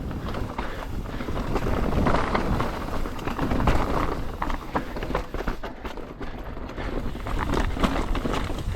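Mountain bike descending a rocky downhill trail: tyres rumbling over rock with a steady, dense clatter of knocks and rattles from the bike.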